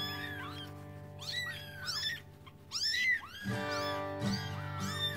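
Very young kitten mewing repeatedly: about six short, high, thin cries that rise and fall, over background music.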